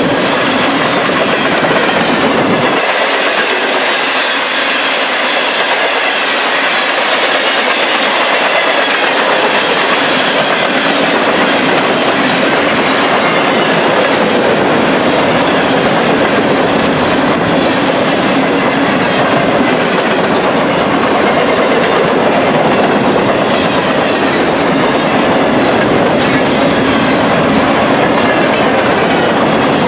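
A train's railroad cars rolling past on the track, a loud, steady running noise.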